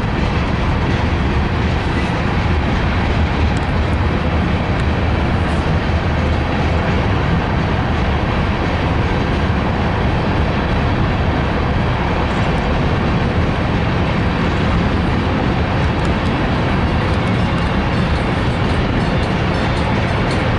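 Empty coal hopper cars of a freight train rolling past, a steady loud rumble of steel wheels on rail.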